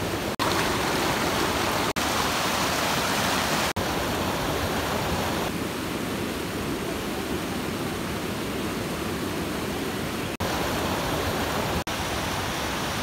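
Fast river water rushing over rocks and whitewater below a low weir: a steady, strong flow. It has several brief gaps.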